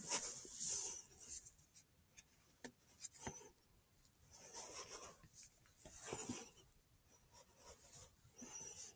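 Faint rustling and scraping, with a few soft clicks scattered through it.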